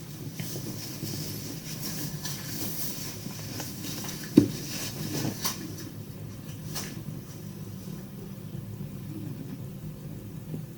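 Steady low rumble heard in a small room, with one sharp knock about four seconds in and a couple of fainter clicks after it.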